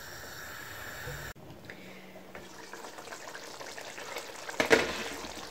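Chicken and mash daal simmering in a pan, a faint steady bubbling hiss, with a brief knock near the end.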